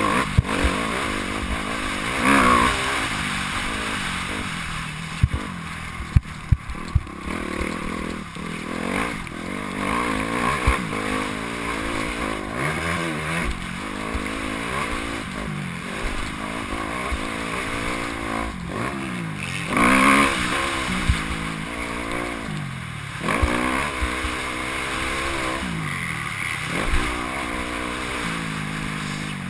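Motocross dirt bike engine heard from a helmet-mounted camera, revving up and falling back over and over as the rider accelerates, shifts and brakes around the track, hardest about two seconds in and again around twenty seconds. A few sharp knocks come through a few seconds in.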